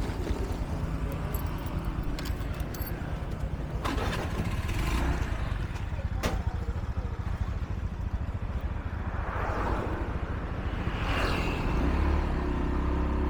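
Motorbike running, with steady road and wind noise; a couple of sharp clicks in the middle, and the low engine hum grows stronger near the end.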